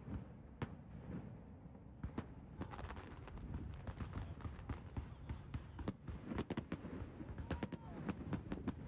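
Aerial fireworks going off: scattered sharp bangs at first, becoming more frequent after a few seconds, then a quick run of sharp cracks and pops from about six seconds in as the display builds.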